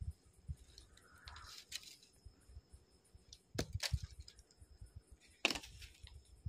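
A cloth sheet rustling as a person lying on the ground under it pulls it up over his head, with a few sharp crackles of fabric and movement. Crickets chirp behind in a fast, even rhythm.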